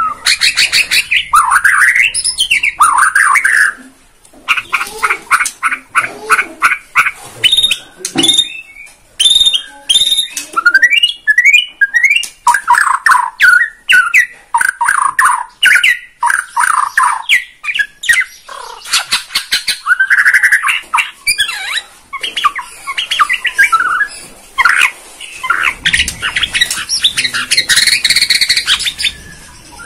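White-rumped shama (Bornean murai batu) singing loudly and almost without pause, in full 'gacor' song, running through its repertoire of fast rattling runs, quick rising and falling whistles and harsh chattering notes, with brief breaks about four seconds in and just before the middle.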